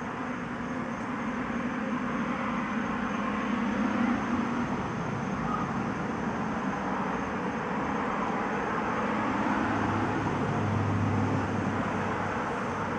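Steady background noise of traffic-like rumble and hiss, with a low hum that sits higher in the first few seconds and drops lower near the end.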